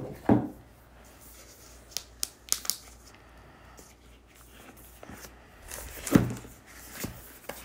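Packaging handled by hands: a few light clicks and crinkling as they grip the laptop's box and its wrapping, then a louder rustling knock about six seconds in as the MacBook Pro is lifted out of its box.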